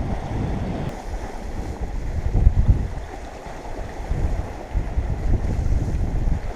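Wind buffeting the microphone in gusts, with its noise strongest in the low end, rising and falling.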